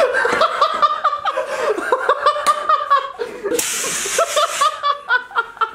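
People laughing hard. A little past the middle, a fire extinguisher sprays in one hissing burst lasting about a second.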